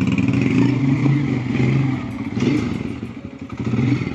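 Small motorcycle's engine running as it is ridden off at low speed. The engine note dips about three seconds in and picks up again near the end.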